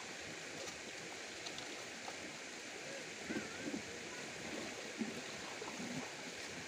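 River water running steadily over a shallow, rocky bed: an even, continuous rush and trickle.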